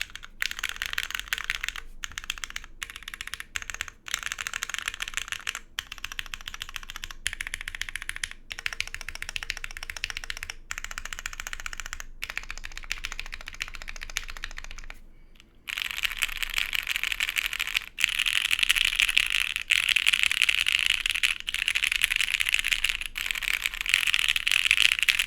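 Fast typing on a plateless, gasket-mounted Leviatán mechanical keyboard with MX Black linear switches, a continuous clatter of keystrokes. It pauses briefly about 15 seconds in, then resumes louder and denser.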